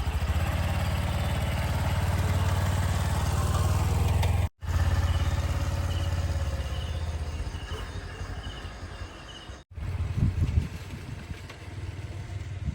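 Small motorcycle engine running steadily at low speed, broken by abrupt cuts; in the last few seconds the engine is quieter and mixed with some knocks and clatter.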